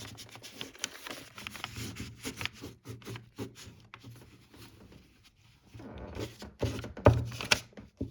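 Glue being rubbed onto paper in short, irregular scraping strokes, with paper rustling as it is handled. It goes quieter for a couple of seconds past the middle, then a louder flurry of rustling and scraping comes near the end.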